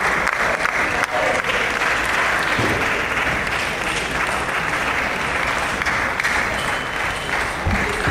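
Steady, dense clapping and crowd noise filling a sports hall, with some voices mixed in.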